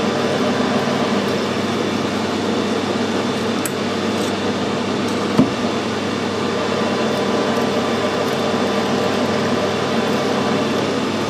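Metal lathe running steadily with a long-series twist drill cutting a hole through a metal workpiece spinning in the chuck, the drill clearing its swarf freely. A single sharp click sounds about five seconds in.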